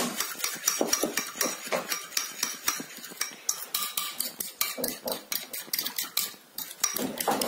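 Metal spoon beating an egg and yogurt mixture in a ceramic bowl, with rapid, repeated clinks of the spoon against the bowl.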